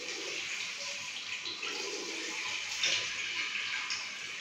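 Steady hiss of running water in a small tiled bathroom, with a few light clicks as small plastic fill-valve parts are handled.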